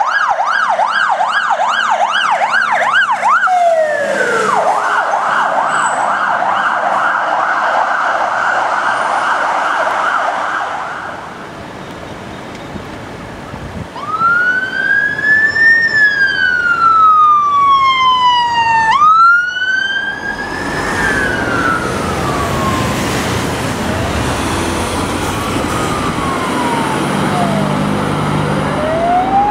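Fire truck sirens: a fast yelp cycling about three times a second for the first ten seconds or so, then after a brief quieter lull a slow wail rising and falling, with a sudden jump back up in pitch near the middle.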